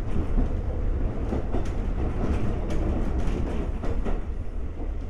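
Running sound inside Konan Railway 7000 series motor car DeHa 7155, an ex-Tokyu 7000 series electric multiple unit built by Tokyu Car in 1964, on the move: a steady low rumble from wheels and bogies with sharp clicks now and then as the wheels pass over rail joints.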